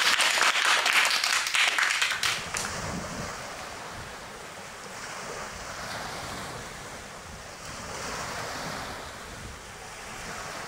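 Hands clapping for about two and a half seconds, then sea waves washing steadily, with wind on the microphone.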